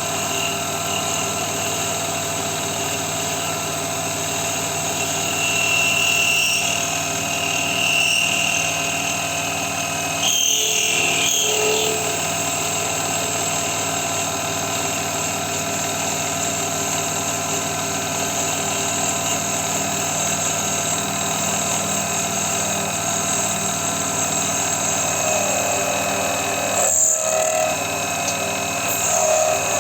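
Small metal-turning lathe running steadily with a hum of several fixed tones, with brief higher-pitched sounds about 6 and 8 seconds in and a short change in the sound around 10 to 12 seconds.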